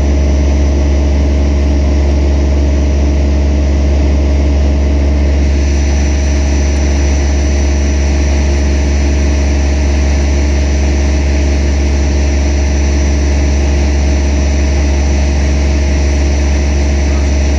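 Heavy diesel engine of the crane lifting the precast concrete chamber, running at a steady speed as a constant low drone. A faint high whine joins about five seconds in.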